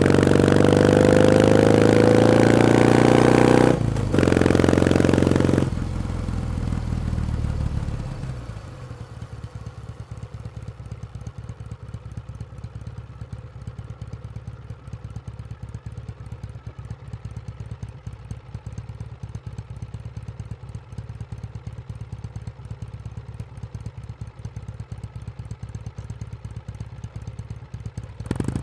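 Kawasaki W1 Special's 650 cc vertical-twin engine accelerating with rising pitch, a short break for a gear change about 4 s in, then the throttle closes and it settles to a steady, low idle for about twenty seconds before revving up again near the end.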